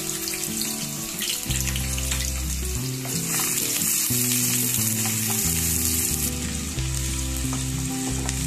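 Chopped onions sizzling in hot oil in a stainless steel pressure cooker, a steady crackling hiss as they are stirred with a spoon. Low held tones that change pitch every second or so run underneath.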